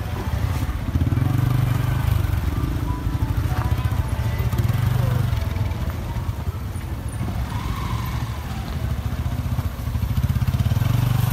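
Motorcycle engine running while riding, its note rising about a second in, easing off in the middle and picking up again near the end as the throttle changes.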